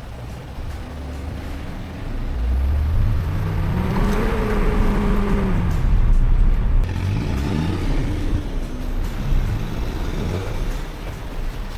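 A 4WD's engine revving under load over a low rumble, its pitch rising and falling twice, the sound of a four-wheel drive working its way through a creek crossing.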